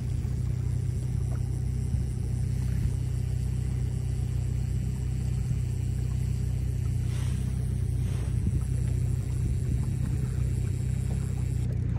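Fishing boat's outboard motor running steadily with the boat under way, a low, even drone over the wash of water.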